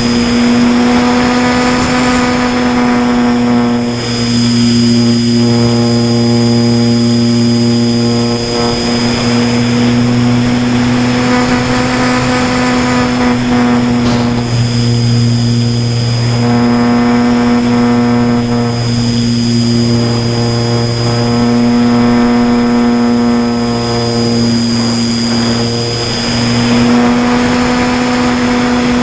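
Motor and propeller of a foam radio-controlled model aeroplane, heard through its onboard camera: a steady droning hum with a thin high whine above it and rushing air. The pitch shifts slightly and the level dips a few times.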